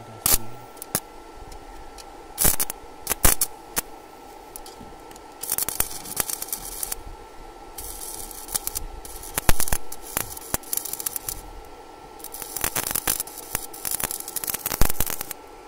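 Stick (arc) welding electrode arcing on steel rebar: a few sharp pops as the arc is struck in the first seconds, then crackling runs of one to three seconds each as the weld is laid, over a steady hum.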